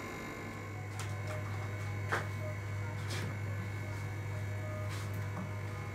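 A steady low electrical hum, with a few light clicks of small parts being handled spaced through it.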